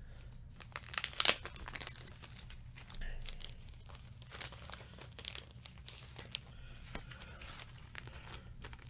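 Paper prints and clear plastic sleeves rustling and crinkling as they are handled and shuffled, with irregular short rustles and the loudest crinkle about a second in.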